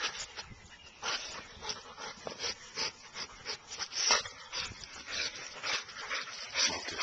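American Staffordshire terrier whimpering and yipping, excited on a mouse hunt: short, irregular sounds, a couple each second, the loudest about four seconds in.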